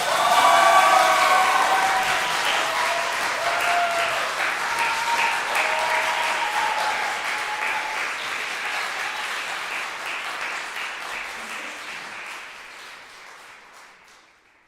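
Audience applauding a live song performance, the clapping steady at first and then dying away near the end.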